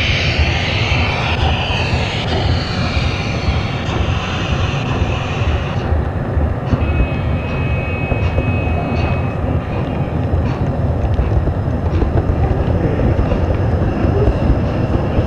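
Steady rumble of a gauge 0 model train's wheels rolling on the rails, heard from a camera riding on the train. A hiss in the first several seconds, a brief high whine around the middle, and a few light clicks later on.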